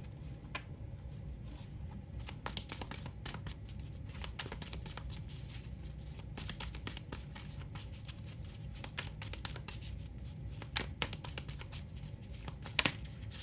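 A deck of tarot cards being shuffled by hand: a fast, uneven stream of soft card clicks and riffles, with a couple of louder snaps near the end, over a low steady hum.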